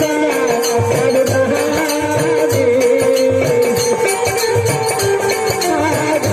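Instrumental folk music: a held, slightly wavering melody line over a steady drum beat of about two strokes a second, with quicker bright percussion on top.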